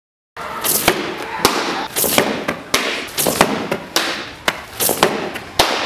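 A fast, irregular run of sharp cracks and knocks, roughly two a second, each with a short ringing tail, starting abruptly out of silence.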